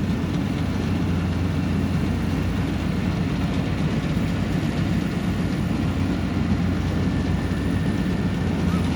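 Yanmar YH700 combine harvester's diesel engine and threshing machinery running in a steady, even drone while harvesting rice.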